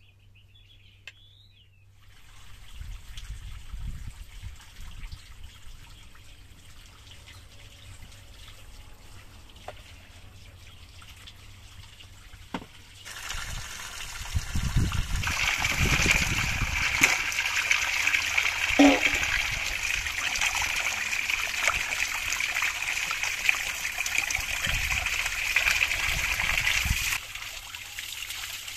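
Water pouring from a pipe into a concrete channel, coming in about halfway through as a steady, loud splashing run of water, with hands rinsing tomatoes and green beans in the stream. Before it there is a quieter stretch of low noise.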